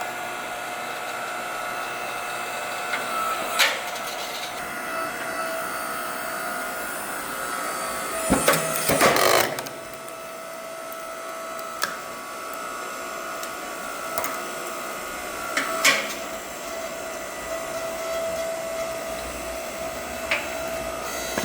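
Electric hydraulic log splitter's motor and pump running with a steady whine while its ram drives through a small log, with sharp cracks and snaps of the wood splitting; the loudest cracking comes about eight to nine seconds in.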